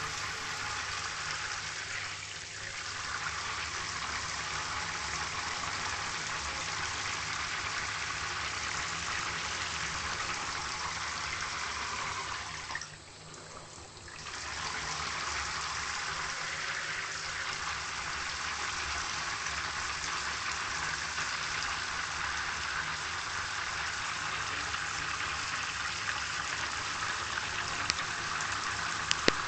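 Water running steadily from a tap, an even hiss that drops away for a second or two about halfway through.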